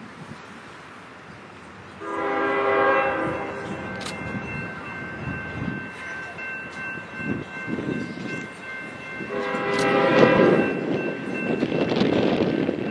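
Diesel freight locomotive's multi-chime air horn: a loud blast starts about two seconds in, holds on more quietly, and swells into a second loud blast about nine seconds in. The rumble of the approaching train builds toward the end.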